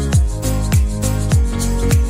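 Background music with a steady beat: a deep kick drum about every 0.6 seconds under held chords.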